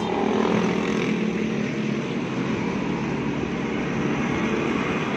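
An engine running steadily with an even, low hum.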